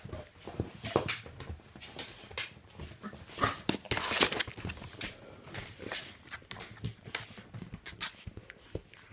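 Miniature pinschers and an American bulldog play-fighting: a run of irregular short scuffles and huffs, busiest about three to four and a half seconds in.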